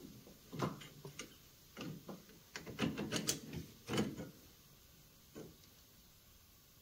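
Metal clinks and knocks of front suspension parts on a Polaris Ranger 400 being handled and fitted back into place: an irregular string of short knocks, loudest about three to four seconds in, then one faint one before it goes quiet.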